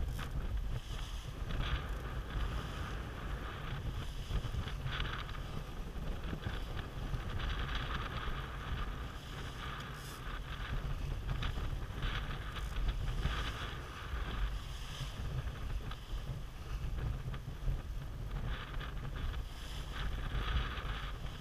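Wind buffeting the GoPro's microphone over the rush of water along a sailboat's hull as it sails heeled; the water noise swells and falls in irregular surges.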